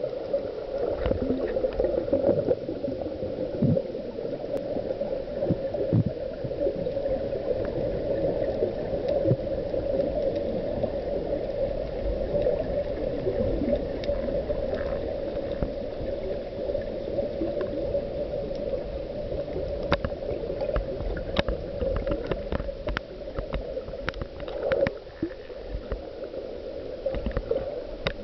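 Underwater sound picked up by a camera in a waterproof housing during a breath-hold dive: a steady muffled hum with scattered sharp clicks and low thumps and knocks.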